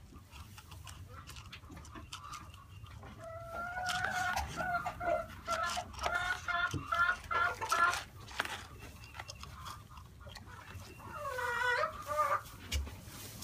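Chickens clucking in runs of short pitched calls, for several seconds from about three seconds in and again briefly near the end. Underneath, scattered clicks and crunches of a miniature horse foal nosing through feed pellets in a plastic bucket.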